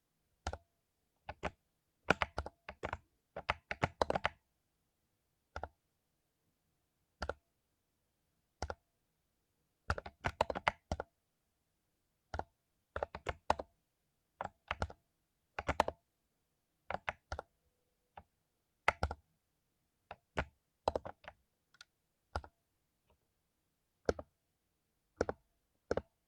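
Mechanical keyboard with lubed Cherry MX Silver linear switches being typed on: irregular keystrokes, some single and some in quick flurries, with pauses of a second or two between them.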